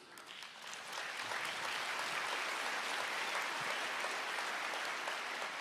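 Congregation applauding in a large crowd of clapping hands, swelling in over the first second or so and then holding steady.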